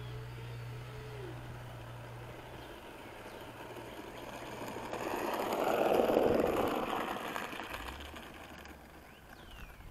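Electric ducted fan of an RC F-35 jet taxiing, a rushing whine that swells to its loudest about six seconds in and then fades away.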